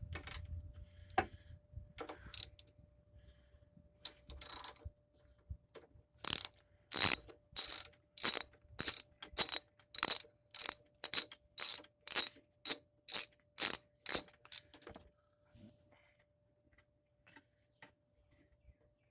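Ratchet wrench clicking through a steady run of short back-strokes, about two a second, as it loosens and backs out a lawn mower's spark plug. A few scattered clicks of handling come before the run.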